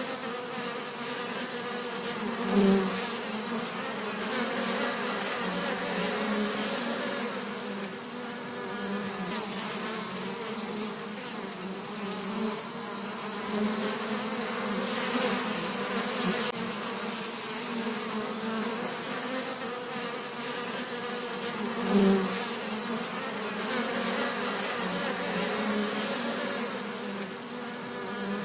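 Bees buzzing steadily, with a brief louder buzz near the start and again about twenty seconds later, as if a bee passes close.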